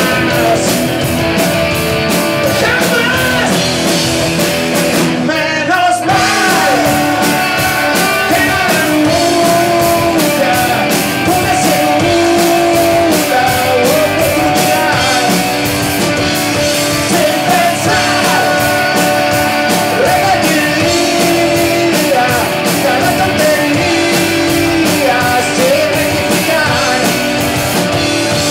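Live rock band playing: electric guitars, bass guitar and drum kit, with a lead singer.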